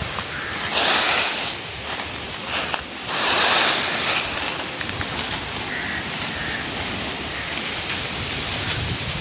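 Breeze blowing steadily, with two louder gusts about one second and three seconds in.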